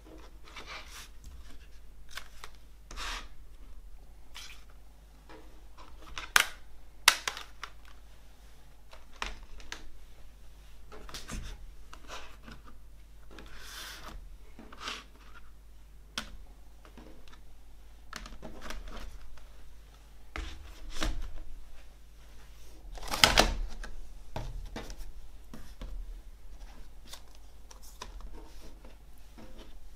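Plastic CD jewel cases being picked up, stacked and slid across a wooden tabletop: scattered clicks and clacks with brief sliding scrapes. Two sharp clicks come about six and seven seconds in, and the loudest clatter comes about two-thirds of the way through.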